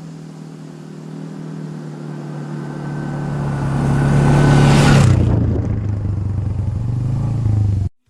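Polaris Sportsman 500 HO ATV's single-cylinder engine running, growing steadily louder, then dropping in pitch and level about five seconds in. The sound cuts off abruptly near the end.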